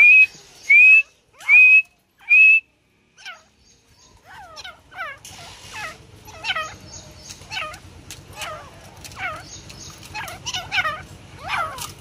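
Grey francolins calling: four loud, clear whistled notes about a second apart, then after a short pause a quieter, busy run of repeated calls that drop in pitch and overlap one another.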